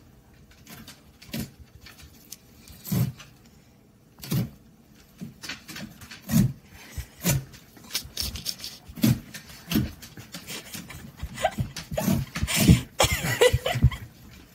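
Dogs sniffing and nosing at the holes of a cardboard box: a string of short snuffs and bumps, about one a second at first and busier towards the end.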